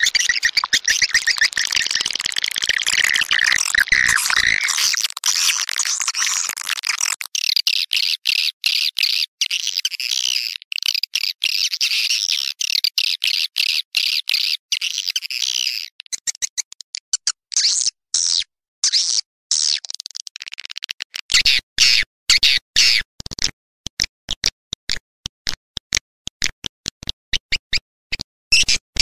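Swiftlet lure recording: dense, high-pitched swiftlet twittering and chirping, of the kind played to draw edible-nest swiftlets into a swiftlet house. It runs continuously for the first several seconds, then breaks into rapid stuttering chirps with short gaps.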